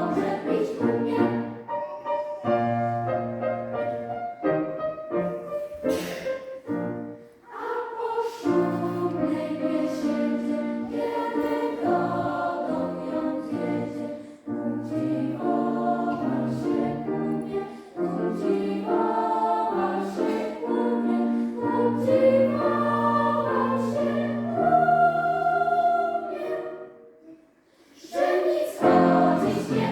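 Choir singing classical music in sustained, overlapping voices, with a short break near the end.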